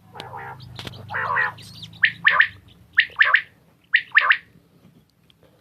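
Caged quail calling: a short rasping churr, then three loud calls about a second apart, each a quick run of two or three sharp, falling notes.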